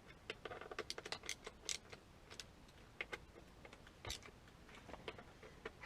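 Faint, irregular light clicks and taps, several a second and uneven, like small hard parts being handled.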